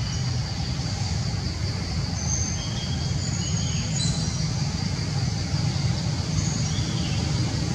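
Steady low outdoor rumble, with a few faint, short, high-pitched chirps now and then.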